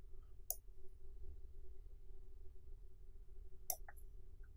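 A few computer mouse clicks over a faint steady hum: one click about half a second in, then two close together near the end.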